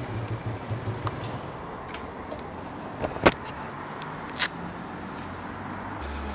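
Kymco Zing 2 motorcycle engine ticking over at low revs as the bike rolls to a stop, then two sharp clicks about three and four seconds in.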